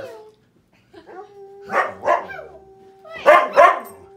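Husky barking at the television: four short barks in two pairs, the second pair the loudest.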